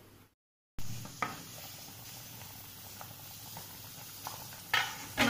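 Fish and potato stew boiling hard in an open steel kadai: steady bubbling with many small pops. A click sounds about a second in, and a louder knock comes near the end.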